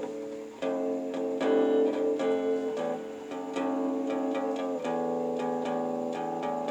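Electric guitar played through a Boss compressor pedal: chords struck several times and left to ring between strikes.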